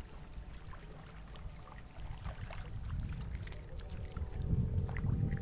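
Wind rumbling on the microphone, with faint scattered clicks and ticks over it that grow louder toward the end.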